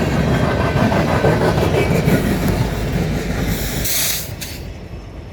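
Empty grain train's covered hopper cars rolling past at track speed, wheels clattering over the rails with a steady rumble. A brief hiss comes near four seconds in, and then the noise falls away.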